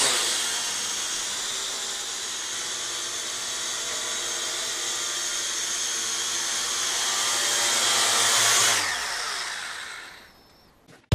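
Huajun W606-3 quadcopter's brushed motors and propellers running with a steady high whine, getting a little louder toward about eight seconds in. The motors then wind down, the whine falling in pitch and fading out about two seconds before the end.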